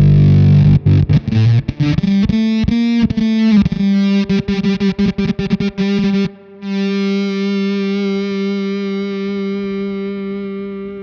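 Electric guitar through a Fender Shields Blender fuzz pedal. Heavy fuzzed chords give way to a rapid, stuttering run of chopped-off notes, and then, about halfway through, one held fuzz note sustains and slowly fades.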